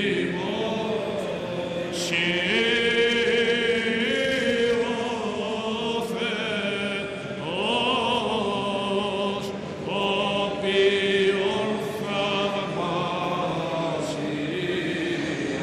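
Greek Orthodox Byzantine chant: male voices singing slowly, drawing one word out over long, winding melismatic notes. A few sharp clicks or strikes cut through the singing now and then.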